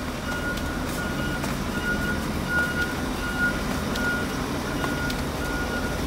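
A vehicle's reversing alarm beeping steadily, one high tone about three times every two seconds, over a low steady rumble.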